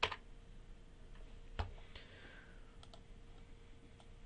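Faint clicks from a computer keyboard and mouse: a sharp click right at the start, a heavier one about a second and a half in, then a few light ticks, over a faint steady hum.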